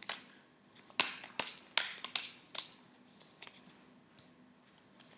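A deck of oracle cards being shuffled by hand: a run of crisp snaps and slaps, thick over the first three seconds, then thinning to a few faint ones.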